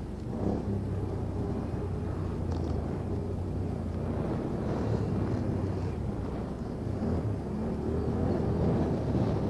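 Off-road vehicle engine running steadily at low revs, a low hum that holds nearly the same pitch throughout.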